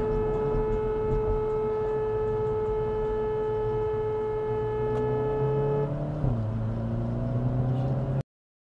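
Car horn held down in one long, steady blast that stops about six seconds in, followed by engine noise rising in pitch as the car speeds up. The sound cuts off abruptly near the end.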